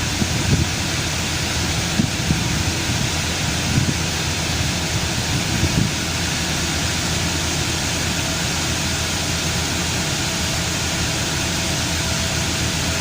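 Chevrolet Camaro engine idling steadily, with a broad, even hiss over a low rumble. The idle runs smooth, without hunting.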